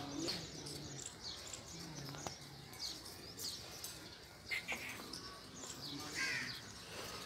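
Birds chirping in short, scattered calls over faint outdoor background noise with distant voices.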